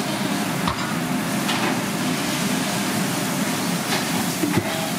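Steady fast-food kitchen background noise, a constant machine-like hum and hiss with a couple of faint knocks and clatter.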